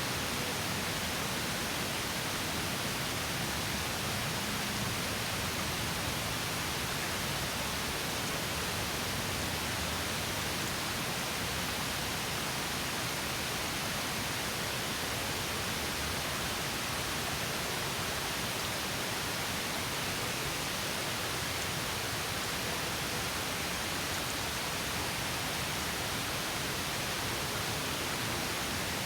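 Small stream spilling over a mini waterfall: a steady, even rush of water with no breaks or changes.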